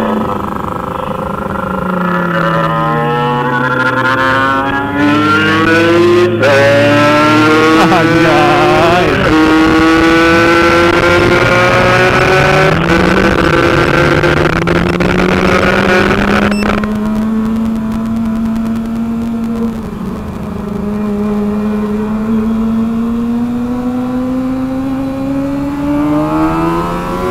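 Kawasaki ZX-25R's inline-four engine revving hard under acceleration. The pitch climbs and drops back several times through the first half, with more than one engine note crossing, then holds steadier and eases off later.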